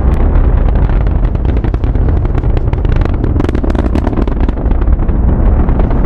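Space Shuttle launch during ascent: the solid rocket boosters and three main engines running as one loud, continuous low rumble with dense crackling.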